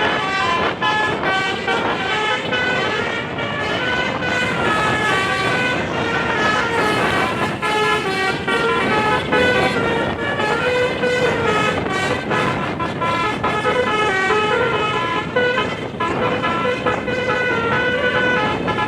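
Tunggal Jaya bus's Basuri multi-tone "telolet" horn playing a fast, loud melody of short stepped notes, over and over, with road-vehicle noise underneath.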